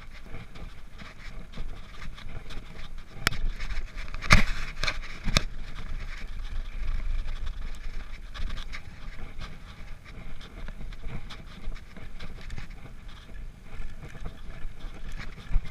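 Downhill mountain bike rolling over grass and dirt: a continuous rumble and rattle of tyres and frame, with a cluster of sharp knocks from about three to five seconds in.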